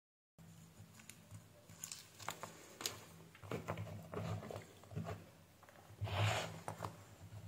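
Small clicks and scratching from handling a disassembled microswitch while a strip of emery sheet is worked between its contacts. About six seconds in there is a brief louder scuffing as a digital multimeter is picked up off the work mat. A low steady hum runs underneath.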